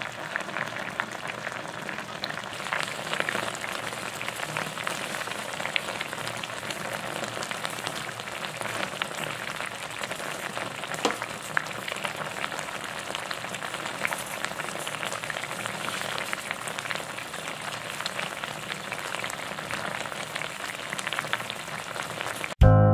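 Spicy braising sauce for bakdae (tonguefish) simmering in a stainless steel pot: a steady crackle of many small bubbles popping as the liquid reduces.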